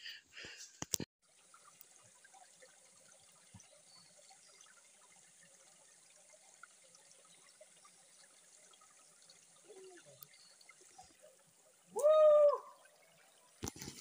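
Faint trickling of a shallow rocky forest stream. Near the end a single loud pitched call, with a clear tone, cuts in for about half a second.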